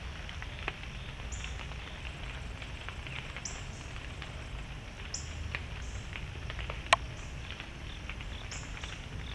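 Whitetail deer moving and browsing in forest leaf litter: scattered light crackles and ticks, with one sharp snap about seven seconds in. Under them runs a steady low rumble, and a short high chirp comes back every second or two.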